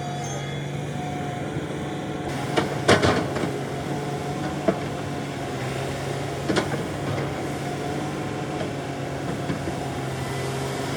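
Excavator engine running at a steady drone, with a short burst of clanks and knocks about three seconds in, then two sharp single knocks a few seconds apart.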